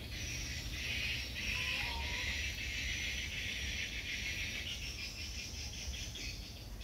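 A steady, high-pitched insect chorus with a low rumble beneath it.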